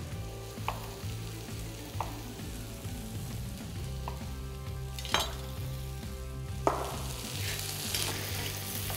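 Sliced mushrooms and shallots frying in butter in a pan, sizzling steadily while more butter melts in. A few sharp clicks and knocks from the knife and spatula, the loudest about five seconds in.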